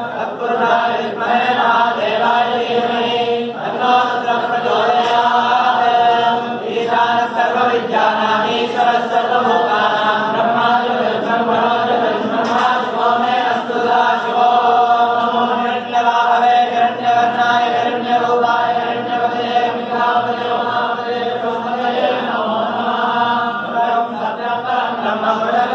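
Many priests chanting Sanskrit names of Shiva together in unison, a steady, unbroken recitation for the archana.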